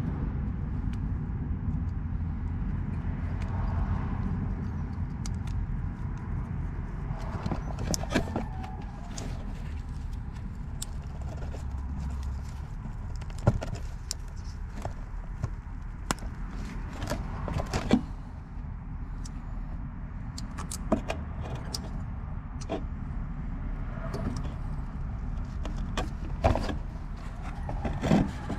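Scattered sharp clicks and light knocks of hands handling a small plastic brake-pad wear-sensor connector and its wiring around a car's front brake caliper, over a steady low rumble.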